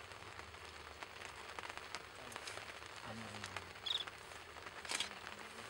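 African wild dogs feeding on an impala carcass: faint, scattered wet clicks and crackles of tearing and chewing, with a brief high chirp about four seconds in and a short, louder crackle about a second later.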